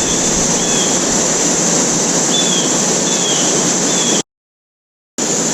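Steady rushing of river water, with a bright high steady hiss over it and a few faint short high chirps. The sound cuts out completely for about a second near the end.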